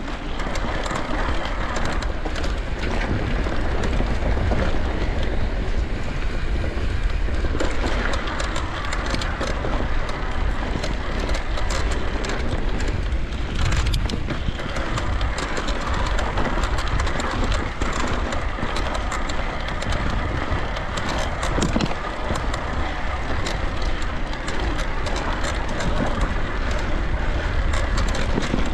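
Electric mountain bike ridden over a rough trail: steady wind noise on the microphone over a constant rattle and clatter of tyres and bike parts over the ground.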